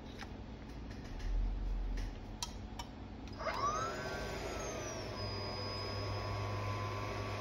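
A few faint clicks, then about three and a half seconds in a hot-air rework station starts blowing: a whine that rises and then settles to a steady pitch over an airy hiss, as it heats the board to desolder the PMIC chip.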